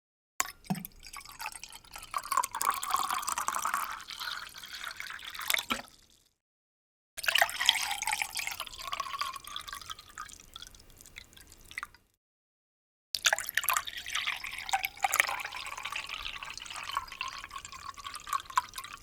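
A drink poured into a glass three times, each pour a few seconds long with a dense crackle. The pitch of the pour rises slowly as the glass fills.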